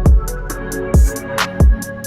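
Electronic background music with a heavy kick-drum beat, ticking high percussion and deep sustained bass.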